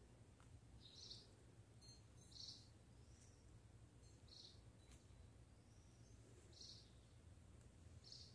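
Faint short bird chirps, five of them spaced a second or two apart, over near silence.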